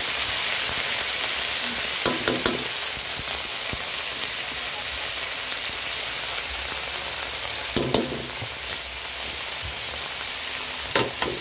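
Corned beef sizzling steadily in hot oil with sautéed onion and garlic in a pan, the sizzle easing slightly over time. A wooden spatula stirs and scrapes it in the pan twice, about two seconds in and again near eight seconds.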